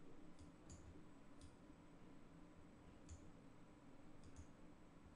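Faint computer mouse clicks, about six of them at uneven intervals, over near-silent room tone.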